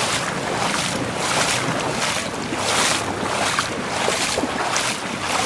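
Footsteps wading through floodwater a little below mid-shin, each stride sloshing and splashing in a steady rhythm, with wind noise on the microphone.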